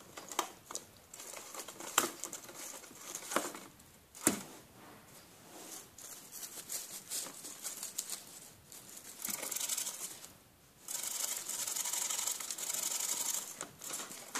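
Gerbil gnawing and shredding a cardboard box: irregular crackling and ripping of cardboard with a few sharper snaps, then, after a brief pause, a denser, steadier run of shredding in the last few seconds.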